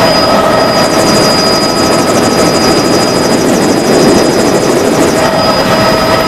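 Helicopter in flight: a loud, steady mix of turbine and rotor noise with a high, steady whine. Between about one and five seconds in, a fast chopping flutter runs along the top of the sound.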